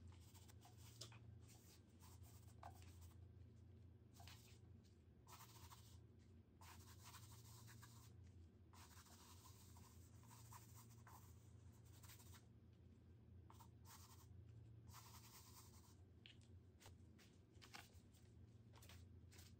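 A gloved hand rubbing and smearing paint across a textured canvas makes a series of faint, irregular scratchy strokes over a steady low hum.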